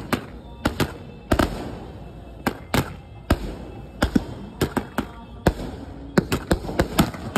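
Fireworks going off: a rapid, irregular string of sharp bangs from aerial shells bursting, over the steady hiss of ground fountains spraying sparks.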